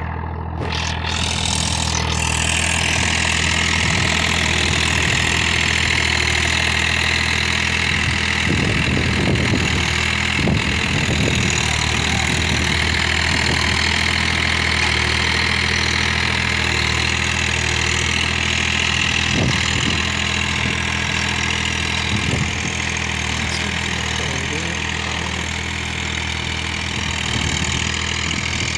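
John Deere compact tractor's diesel engine running steadily under load as it pulls a nine-tine cultivator through the soil.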